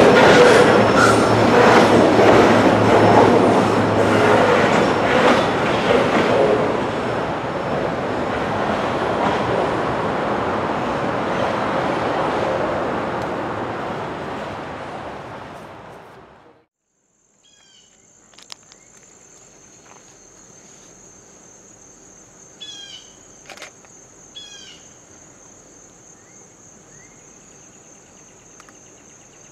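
A train running by, its wheels clattering over the rails, the noise fading over about fifteen seconds and cutting off abruptly. Then a steady high insect drone with a few short bird chirps.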